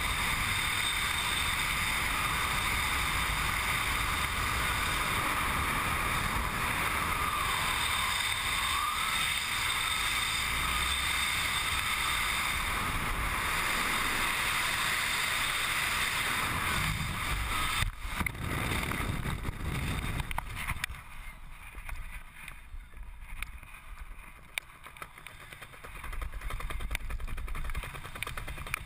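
Freefall wind rushing over a helmet-mounted camera, steady and loud. About 18 seconds in there is a brief sharp peak and the noise drops sharply as the parachute opens, leaving quieter, uneven wind and fabric flutter under the canopy.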